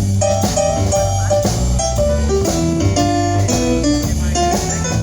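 A band playing an instrumental intro, with guitar lines over bass and a steady drum beat.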